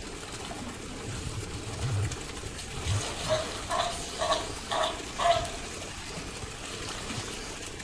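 Sea lion pup calling: four short, high bleats about half a second apart, starting about three seconds in.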